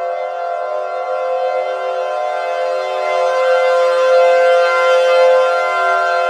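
Civil defense siren sounding a steady wail made of several held pitches together, its loudness swelling slightly toward the middle and easing again.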